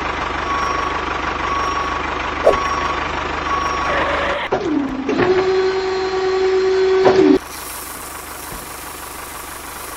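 Vehicle reversing beeps repeat at a steady pace over an engine-like rumble. About four and a half seconds in they give way to a tone that slides down and holds as a steady hum, which cuts off suddenly into an even hiss near the end.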